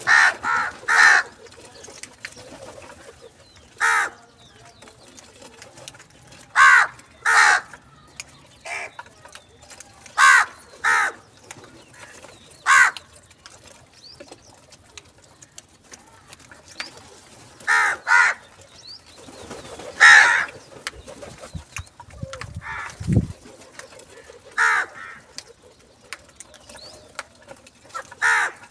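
Crows cawing: loud, short, harsh caws, often in pairs, repeated every few seconds. A brief low rumble comes about two-thirds of the way in.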